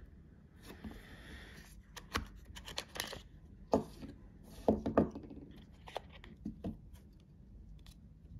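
Cardboard and paper packaging of an AirPods Pro box being handled: a soft rustle, then a series of light knocks and clicks as the cardboard pieces are lifted and set down, the loudest about halfway through.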